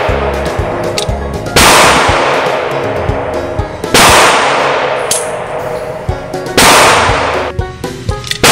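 Uberti 1875 Remington single-action revolver chambered in 9mm firing slow, deliberate shots: three sharp cracks about two and a half seconds apart and a fourth just at the end. Each shot rings on and fades slowly, echoing off the concrete lane of the indoor range.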